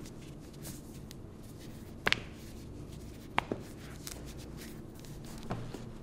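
Hands rustling while a chiropractor works a patient's foot and ankle, with a few sharp joint pops from the foot: a quick double pop about two seconds in, another about three and a half seconds in, and a fainter one near the end.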